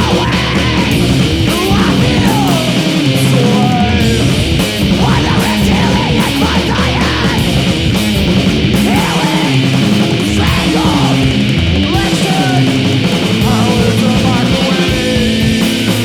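Loud noise rock: distorted guitars, bass and drums playing dense and continuous, with wavering, gliding synth or feedback squeals over the top.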